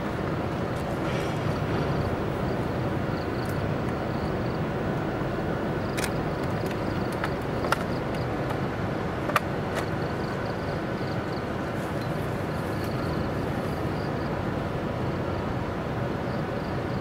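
A 45-ton electric locomotive standing still with its onboard equipment running: a steady mechanical hum. A few sharp metallic clicks come through the middle, the loudest two about eight and nine seconds in.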